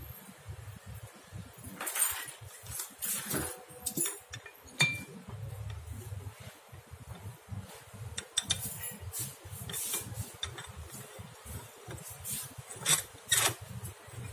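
Irregular metal clinks and knocks from a tyre hot-patch vulcanizing press as its steel screw clamp and round heating plate are fitted and tightened down on a patch over the tyre sidewall.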